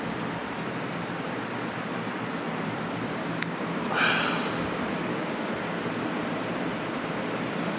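Steady hiss of background noise, like a fan or air conditioner running, with a single click about three and a half seconds in and a short rustling burst just after four seconds.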